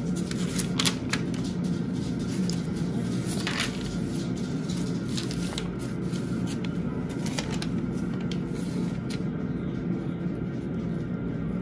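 Sheets of paper rustling and crinkling as hands rub scrap paper down over a painted strawberry leaf and peel it back, with a few sharper rustles spread through. A steady low hum runs underneath.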